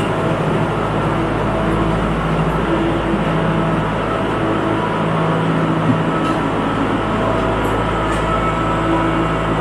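Kubota MX5400 tractor's diesel engine running steadily as the tractor drags a rear blade across the dirt floor to grade it.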